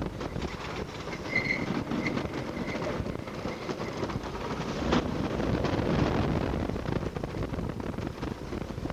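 Wooden roller coaster train rumbling and clattering over its wooden track as it runs through a series of hills. There is a brief high squeal about a second and a half in and a sharp clack about five seconds in.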